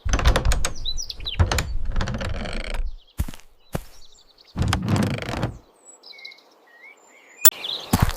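Small birds chirping and tweeting. Two louder stretches of rough, scraping noise come over them, the first lasting about three seconds and the second about a second, and towards the end only a few chirps are left.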